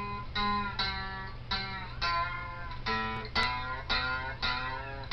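Slide guitar played lap-style: single plucked notes about twice a second, some sliding up and down in pitch, over a steady low hum.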